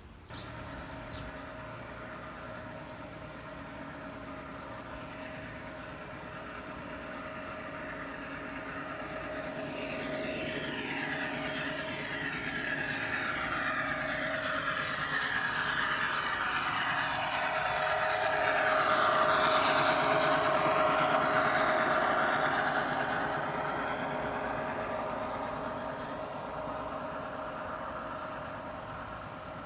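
G scale model train running on an outdoor garden track, its motor and wheels giving a steady whine. It grows louder as it approaches, is loudest about two-thirds of the way through, then fades as it moves away.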